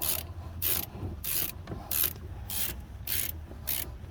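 Ratchet wrench with an 18mm socket, clicking in short rasping bursts about twice a second as it is swung back and forth to run a bolt in.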